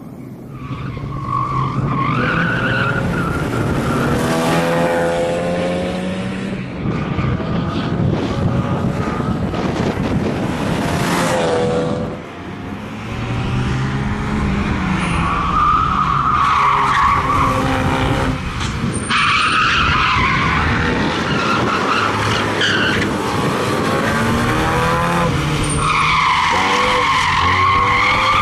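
Opel Astra GSI rally car driven hard through corners, its engine revving up and falling back through gear changes, with tyres squealing in the bends. The sound swells as the car comes close about a second in.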